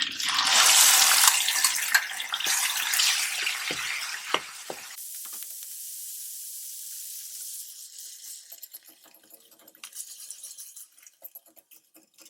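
Blended dried anchovies (ikan bilis) sizzling in hot oil with tempered spices and dried chillies: loud for the first five seconds, then dying down to a quieter steady hiss and a few faint crackles.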